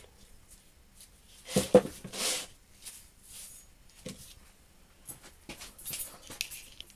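Heavy homemade steel angle plate being handled and set down on a workbench board: a loud knock with a brief ring a little under two seconds in, a short scrape, then lighter knocks and rubbing as it is stood upright.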